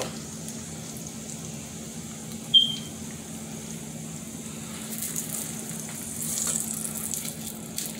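Corn tortilla sizzling softly in a little olive oil in a nonstick skillet, the sizzle growing louder partway through. A single sharp click with a short high tone about two and a half seconds in.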